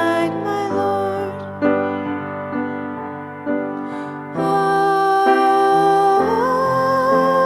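Piano playing slow chords. About four seconds in, a long held melody line comes in over it and slides up to a higher sustained note.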